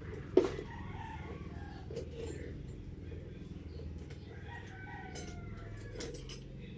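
A rooster crowing, a drawn-out call falling in pitch about four and a half seconds in. A sharp knock about half a second in, and a few light clicks near the end.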